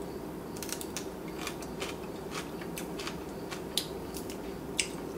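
Quiet room hum with scattered light clicks and ticks, two of them louder near the end.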